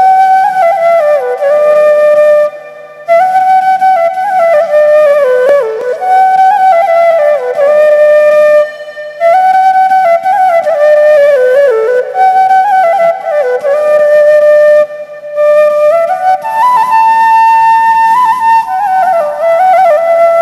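Background music: a solo flute playing a slow, ornamented melody in phrases, with brief pauses between them.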